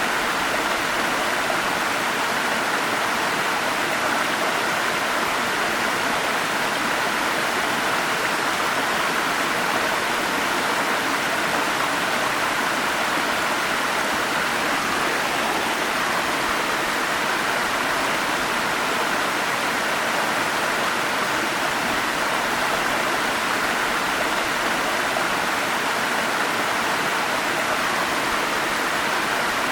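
Forest stream with small waterfalls, water rushing in a steady, even flow that does not change.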